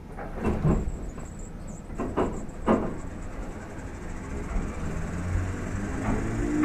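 Kintetsu 2800 series electric train starting off. A few sharp clunks come in the first three seconds, then from about four seconds in a low motor hum builds and a whine begins to rise in pitch as the train gathers speed.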